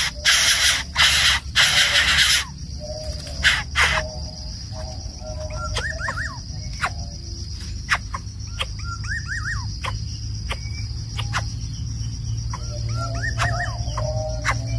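A few loud hissing bursts in the first two seconds or so, then a steady high drone of crickets with short bird chirps recurring every few seconds and occasional sharp clicks.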